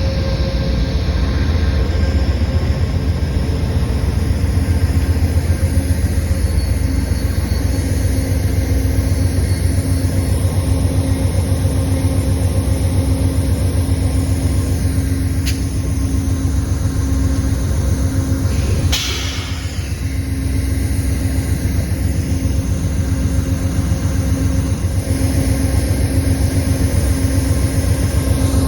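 Passenger train running on the rails, a steady low rumble with a constant droning tone, and a short hissing rush about two-thirds of the way through.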